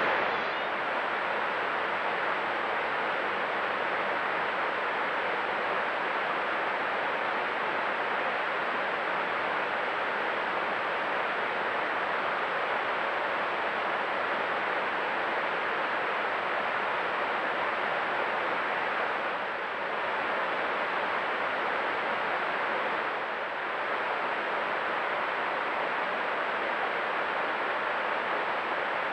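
Steady, even background hiss with a faint thin high whine above it, dipping slightly twice.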